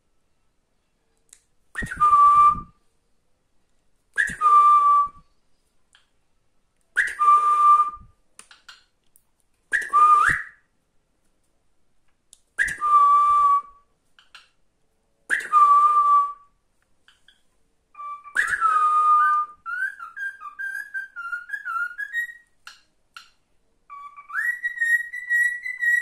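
Cockatiel whistle training. A short whistled phrase, a quick upward slide into a held note, is repeated seven times about every two and a half seconds. From about two-thirds of the way in, a longer, continuous warbling whistled song takes over.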